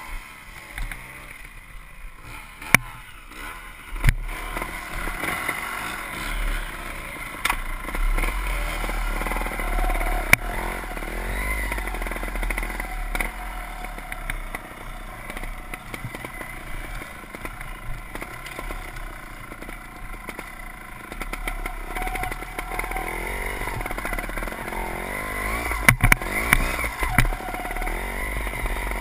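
Trials motorcycle engine running under changing throttle, its pitch rising and falling as the bike climbs a steep rocky slope, with several sharp knocks from the bike striking rocks.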